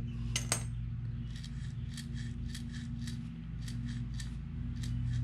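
Hand ratchet clicking in short strokes, about two to three clicks a second, as the two 7 mm bolts of a rebuilt ATV starter motor's case are tightened by feel.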